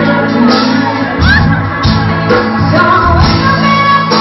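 Live band playing loudly: female vocals sung into microphones over electric bass and guitar, with a steady beat.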